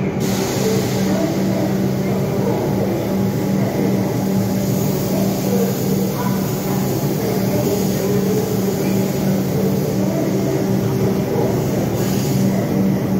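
Stationary Melbourne suburban electric train humming steadily at the platform with a constant low tone from its on-board equipment, with a short hiss near the end.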